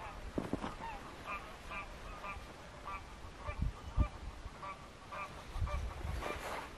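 A flock of geese calling, many short overlapping honks repeated throughout, with a couple of dull low bumps about halfway through.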